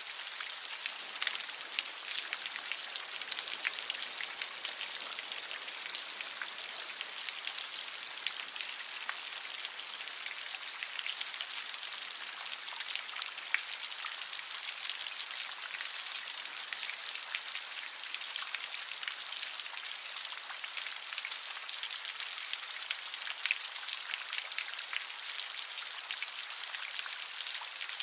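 Steady rain, with many separate drops pattering and ticking on surfaces.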